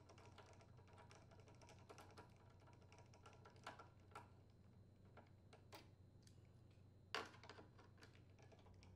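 Faint, scattered clicks of a Phillips-head screwdriver working out the air filter housing screws on a Briggs & Stratton small engine, over a low steady hum. The loudest click comes about seven seconds in.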